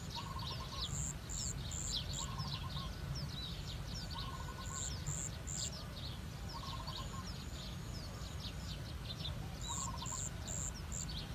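Several small birds chirping, with many quick high calls. Groups of three or four very high notes come three times, and a short stuttering lower call repeats about every two seconds. A steady low rumble runs underneath.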